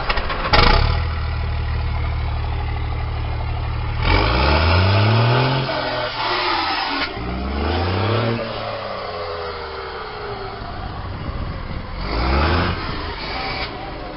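Diesel truck engine with a straight-pipe exhaust idling, then revved three times, each time rising in pitch and dropping back to idle. There is a sharp knock about half a second in.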